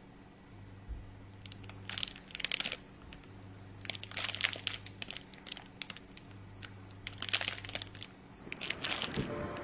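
Clear plastic cellophane bag around a set of small peanut butter jars crinkling as it is handled, in about four short spells.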